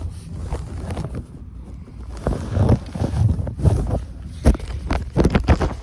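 Wind buffeting the microphone in irregular gusts, strongest in the second half, with a couple of sharp knocks near the end.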